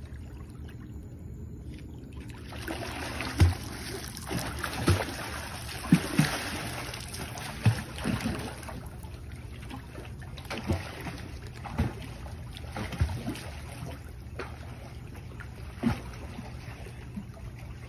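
Water splashing from a child's kicks as he swims across a pool on a kickboard, heaviest from a few seconds in to about halfway, with a few dull thumps over a steady low hum.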